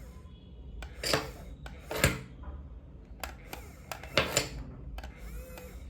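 A toy RC excavator's plastic arm and bucket clattering as they work the digging motion: a run of separate clicks and rattles, the loudest about two and four seconds in.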